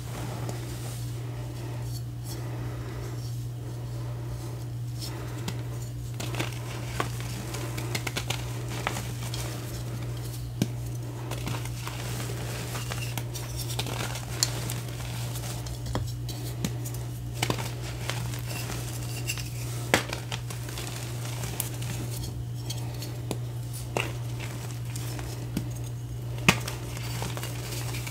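Gym chalk being squeezed and crumbled in the hands: a soft gritty crunching of powdered chalk, broken by scattered sharp little cracks as chunks snap apart. A steady low hum runs underneath.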